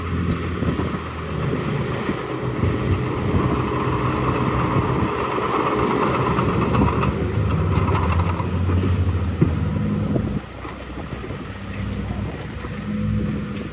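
Heavy diesel earthmoving machinery running under load, a bulldozer and dump trucks, with a few sharp clanks. The engine noise drops suddenly about ten seconds in.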